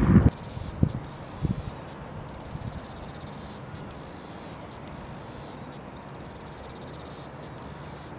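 Insects trilling in a high, continuous buzz made of rapid pulses, broken by short pauses about once a second.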